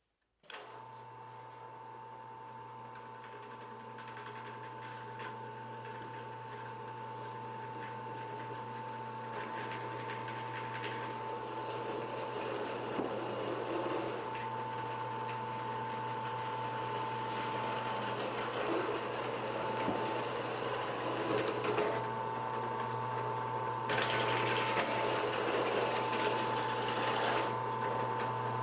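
Shop Fox W1848 floor drill press running with its bit boring into a piece of steel: a steady motor hum and whine under a grating cutting noise. It starts suddenly about half a second in and grows gradually louder, loudest near the end.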